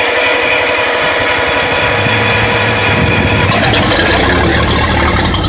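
Buda six-cylinder engine of a Bucyrus-Erie 24L drilling rig being cranked to start. It comes close to catching but does not start, with a steady low hum joining the cranking about two seconds in.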